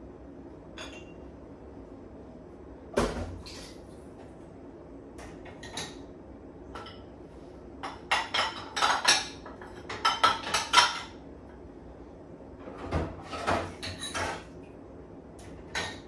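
Dishes and mugs clinking and clattering against each other and the wire rack as they are loaded into a dishwasher's lower basket. There is a single knock about three seconds in, then a busy run of clinks through the middle and another short run near the end.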